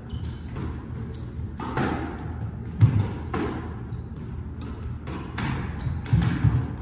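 Squash rally: a run of sharp impacts as the ball is struck by rackets and cracks off the court walls, roughly one every half second to a second, the loudest about three seconds in. Players' shoes thud and shuffle on the wooden court floor between hits.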